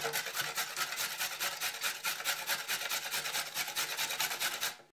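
Carrot being grated on a stainless steel four-sided box grater: quick, even strokes, several a second, that stop near the end.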